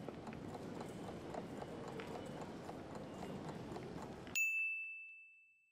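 Train-station background ambience: a steady low murmur with faint irregular clicks, like footsteps. About four seconds in, a single bright ding chimes and rings out, fading over about a second, marking the quiz countdown clock.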